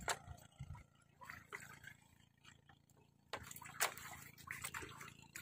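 Faint dripping and splashing of water in the trap's pool, with scattered light clicks and knocks. It goes nearly quiet for a couple of seconds in the middle and grows busier from about three seconds in.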